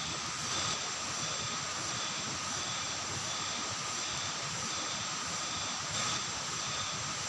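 Steady chorus of forest insects: a continuous drone with several high, even notes, one of them pulsing about three times every two seconds.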